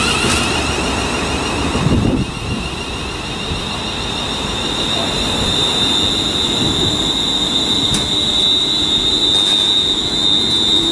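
ScotRail Class 380 Siemens Desiro electric multiple unit braking to a stop at a platform. An electric motor whine shifts in pitch in the first couple of seconds, then a steady high whine grows as the train comes to rest, over a low rumble of the wheels.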